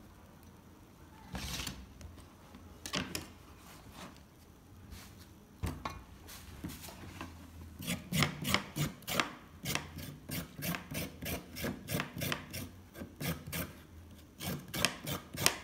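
A kitchen knife slicing a carrot on a cutting board: a steady run of short cutting strokes, about three or four a second, starting about eight seconds in. Before that, a few scattered rustles and knocks of hands tossing chopped salad in a steel bowl.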